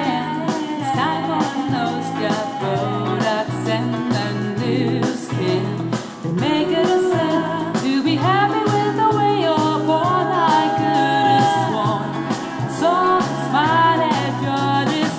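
A pop song with a lead vocal over a steady band accompaniment, played through a Canton Plus MX, a small two-way sealed-box speaker. It has little deep bass.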